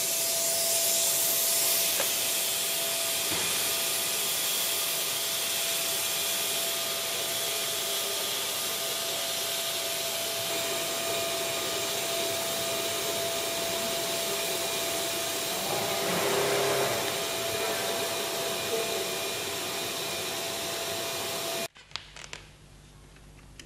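Leister Variant T1 hot-air tarpaulin welding machine running: a steady blower hiss with a constant whine, with a short rustle of material about two-thirds through. It cuts off suddenly near the end.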